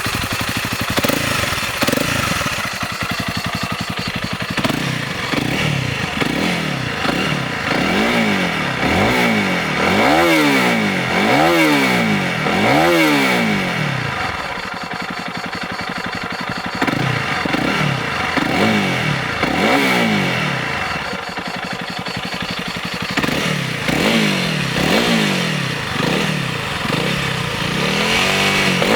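Honda CRF300L's single-cylinder four-stroke engine through its stock exhaust, idling between repeated throttle blips. Each rev rises and falls within about a second, several in quick succession.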